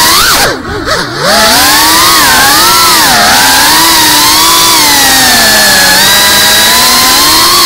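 Geprc FPV quadcopter's brushless motors and propellers whining, the pitch rising and falling with the throttle. About half a second in, the throttle drops away: the pitch dives and the sound dips for under a second, then climbs back.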